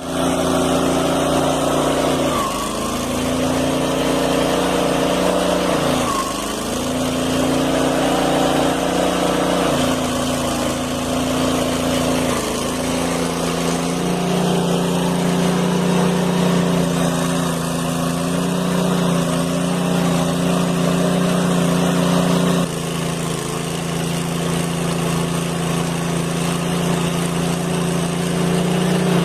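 Petrol engine of a saw running at high revs, its pitch sagging twice in the first few seconds as it bogs under load, then holding steady. The tone changes abruptly a few times.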